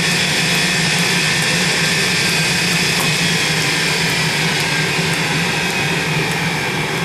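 Forge running steadily: an even rushing noise with a low hum underneath, the sound of the forge heating a layered billet to welding heat.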